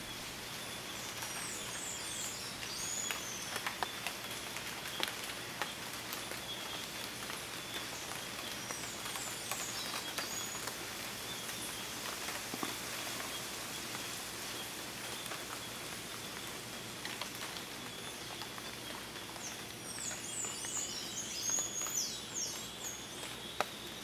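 Cloud forest ambience in fog: birds calling in quick high chirps a second or two in and again near the end, over a steady high-pitched drone and scattered drips off wet leaves.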